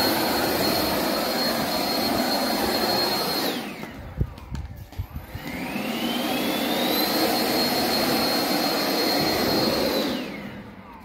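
Ryobi ONE+ 18 V Whisper Series cordless leaf blower running at full speed, a high whine over rushing air. It winds down about three and a half seconds in, and after a knock or two it spins up again with the whine climbing, holds, and winds down near the end.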